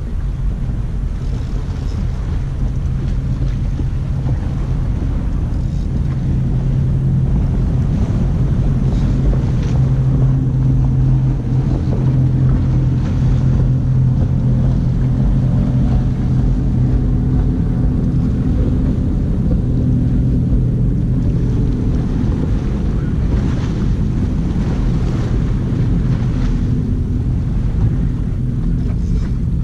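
A steady low engine drone, strongest about halfway through, with wind rumbling on the microphone.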